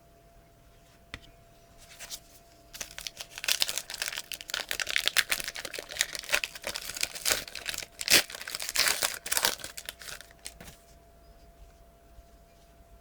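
Wrapper of a Panini Past & Present basketball card pack being torn open and crinkled. A dense run of crackling starts about three seconds in, is loudest in the middle, and dies away near the end.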